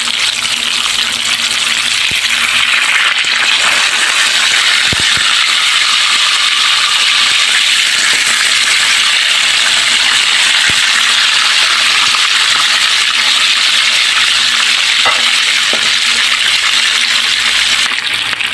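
Fish frying in hot oil in a pan: a loud, steady sizzle with a few faint pops.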